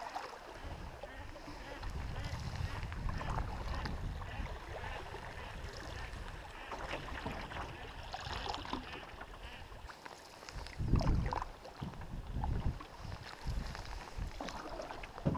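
Solo paddling in a Clipper Prospector canoe: paddle strokes and water sounds, with wind buffeting the camera microphone. A few low bumps come about 11 and 12.5 seconds in.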